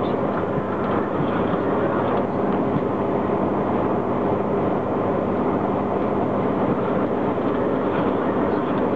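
GoldenPass Panoramic electric train running along the track, heard from inside the front car: a steady rumble of wheels on rails with a low constant hum beneath it.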